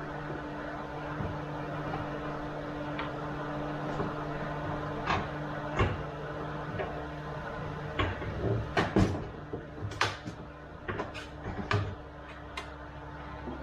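Scattered metal clanks and knocks as a skid steer's operator seat is worked into its slide rails, over a steady low hum that stops about seven and a half seconds in. The knocks come thicker and louder in the second half.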